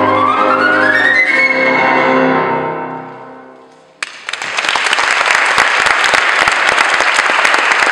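Flute and piano play the closing bars of a sonata, climbing to a high note about a second and a half in, then a held chord fades away. Applause breaks out suddenly about four seconds in and carries on.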